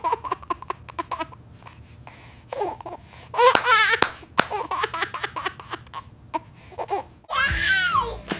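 A baby's voice in short bursts of laughing and crying, mixed with quick clicks. Near the end comes a longer wavering cry that falls in pitch.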